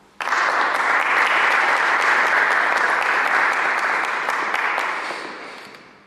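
Audience applauding after a poem is read: the clapping starts suddenly, holds steady, then fades out over the last second or two.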